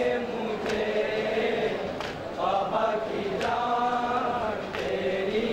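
A group of men chanting a noha (Shia lament) in unison into microphones, in long held lines that slide slowly in pitch. A soft thump falls about every second and a half.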